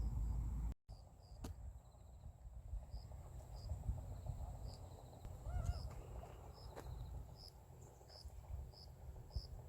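Crickets chirping outdoors, short high chirps repeating about once or twice a second over a faint low rumble, with a thin steady high insect drone. A louder low rumble cuts off abruptly under a second in, and a brief warbling call is heard about five and a half seconds in.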